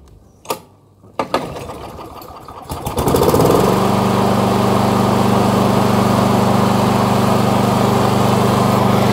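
Masport rotary lawn mower's small petrol engine, primed with lighter fuel poured through a hole drilled in the top, being started. Two sharp clicks come about half a second and a second in, then the engine catches about three seconds in and runs steadily.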